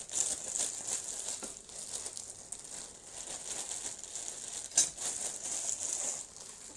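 Rustling and light clatter of a meal being served at a table: bread and noodles being handled, with a sharp click about five seconds in.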